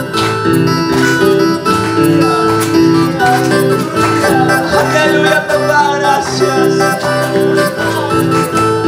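Electronic keyboard playing a lively accompaniment with a steady rhythm and a bouncing bass line under a melody.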